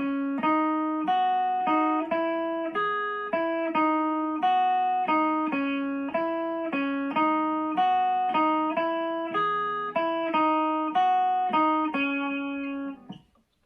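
Guitar played through a compressor pedal with its attack set to 0: a repeating riff of picked single notes, about three a second, each note ringing out and decaying, fading away near the end.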